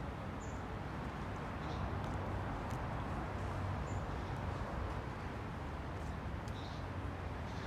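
Outdoor ambience: a steady low rumble and hiss, with a few short, faint, high bird chirps.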